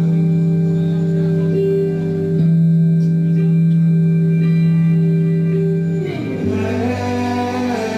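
Live band music with an electric guitar playing over a long held low note; about six seconds in the notes change and bend.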